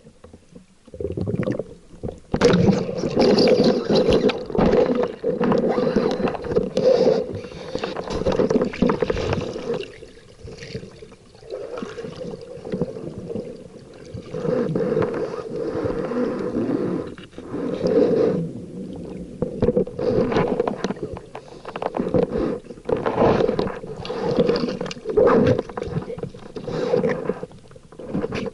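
Water rushing and sloshing against the camera during spearfishing, in irregular loud surges every second or two.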